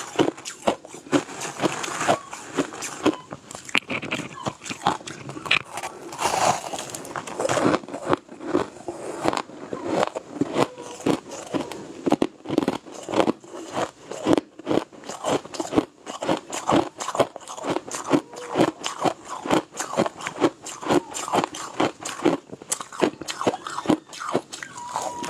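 Close-miked crunching as a person bites and chews pieces of crushed ice, a steady run of sharp crunches, about two or three a second.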